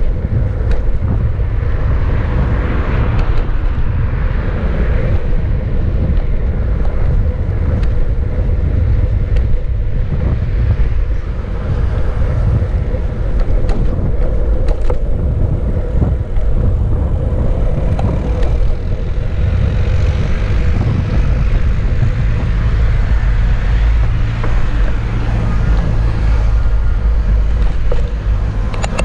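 Wind buffeting the microphone of an action camera on a moving bicycle: a loud, steady low rumble with tyre noise on asphalt and a few faint clicks.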